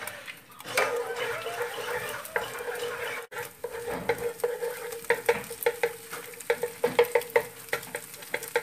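Egg sizzling in hot oil in a nonstick frying pan. After a brief break, a wooden spatula scrapes and knocks against the pan in quick, irregular strokes as the egg is scrambled, with a steady faint hum underneath.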